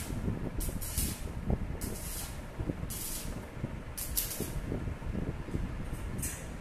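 Stick arc welding on a steel bed-frame tube: the electrode's arc crackles and sizzles, with irregular louder bursts of hiss about once a second. The arc stops near the end.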